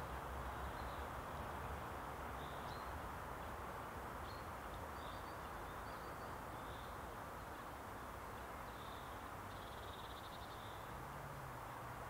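Steady outdoor background hum with faint, short, high bird calls scattered throughout and a quick rapid trill about ten seconds in.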